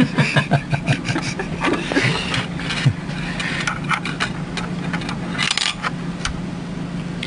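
Rubbing and scraping with clusters of small clicks as parts are handled, busiest in the first few seconds, with another brief burst near the end, over a steady low hum.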